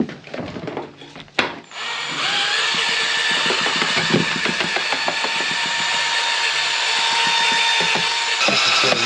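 Electric drill with a paddle mixer stirring a tin of polyester gelcoat: a few knocks and a sharp click as it is set in the tin, then the drill starts about two seconds in and runs steadily with a motor whine.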